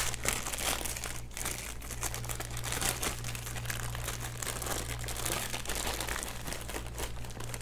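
Clear plastic bag crinkling and crackling continuously as hands peel it off a metal water-cooling monoblock, with a sharp crackle right at the start.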